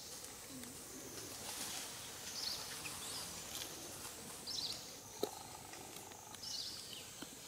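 Faint forest ambience with a short high chirp about once a second, and a single sharp click a little past halfway.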